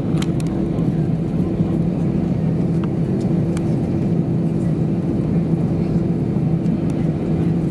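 Airbus A320's CFM56 engines heard from inside the passenger cabin: a steady hum and drone, not spooling up, as the airliner waits or taxis before takeoff. A few faint clicks sound over it.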